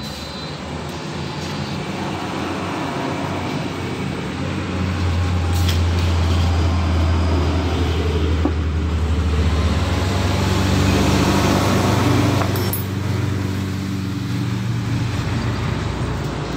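A motor vehicle's engine running, swelling to a loud low drone in the middle and then easing off. A couple of sharp metallic clicks are heard.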